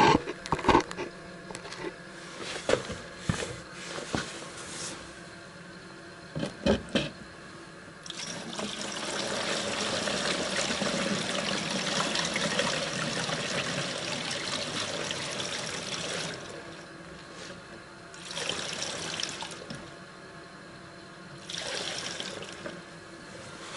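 Petrol poured from a plastic canister through a plastic funnel into a plastic jug to mix two-stroke fuel: a steady splashing stream for about eight seconds, then a few shorter pours near the end. A few sharp knocks of the containers being handled come before the stream starts.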